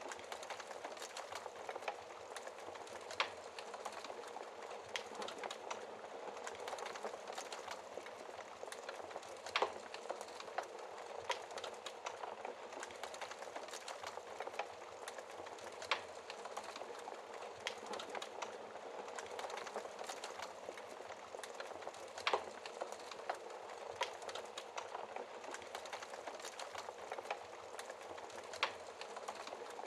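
Wood fire burning in a fireplace: a steady soft hiss of flames with irregular crackles and sharp pops, a few louder pops standing out every several seconds.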